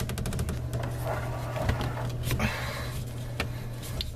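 Handling noise from a drain hose being fitted back onto a garbage disposal under a sink: a quick run of clicks in the first half second, then scattered knocks and rustling.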